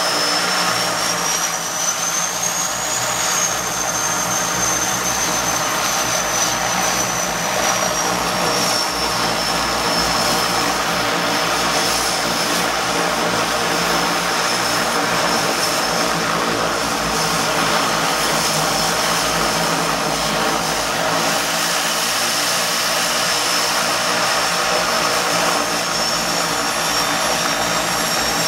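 The turboprop engines of a de Havilland Canada DHC-6 Twin Otter floatplane running steadily, with a loud propeller drone and a high turbine whine. The whine rises about three seconds in, then settles, and a second rising whine comes in near the end.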